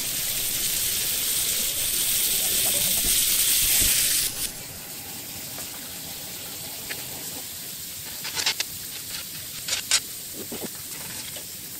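Sauce and meat sizzling on hot cast-iron teppanyaki plates. A loud hiss swells slightly for about four seconds and then cuts off suddenly. A softer steady sizzle follows, with a few brief clinks near the end.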